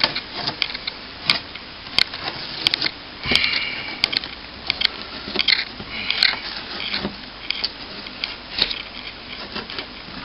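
Damaged plasterboard being ripped back by hand around a hole in a wall: irregular sharp snaps and crunches with short tearing scrapes.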